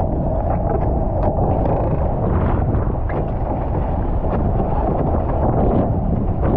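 Wind buffeting the onboard microphone over the steady rush of a Formula 18 catamaran's hulls cutting through choppy water, with scattered short splashes of spray.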